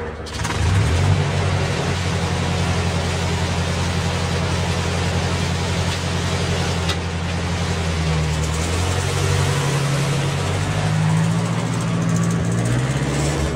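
A motor vehicle engine running steadily under a loud hiss, its low note shifting up and down in steps in the second half.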